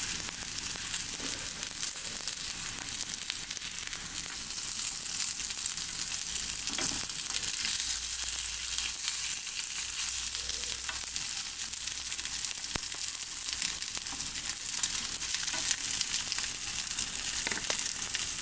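Breaded potato-salad ham cutlets shallow-frying in oil in a frying pan: a steady sizzling hiss with many small crackles and pops.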